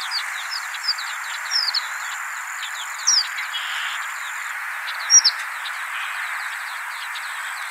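Recorded horned lark calls: many short, high-pitched chirps in quick succession, a few of them louder, over a steady background hiss. This is the lark's high, two-part 'dee-dee' call, which can be mistaken for the chestnut-collared longspur's call.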